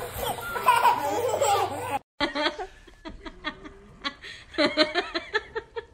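Babies laughing and squealing. After a brief break about two seconds in, a baby gives a string of short, quick giggles.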